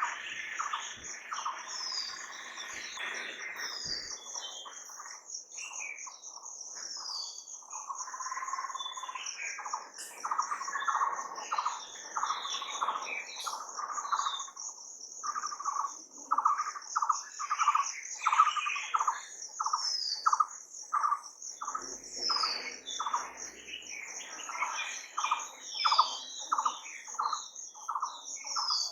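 Birds calling in a natural outdoor soundscape: short falling chirps and, from about halfway on, a string of evenly repeated short notes, over a steady high-pitched insect trill.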